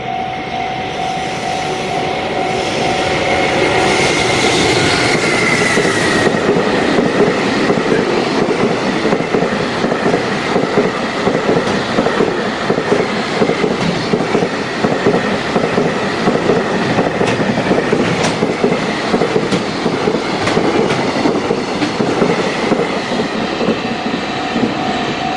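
JR Freight container train behind an EF210 electric locomotive passing over a level crossing at speed, a long, evenly repeating clickety-clack of the wagons' wheels over the rails. A high tone falls in pitch as the locomotive goes by about five seconds in. The crossing's warning bell rings at the start and is heard again near the end as the last wagons clear.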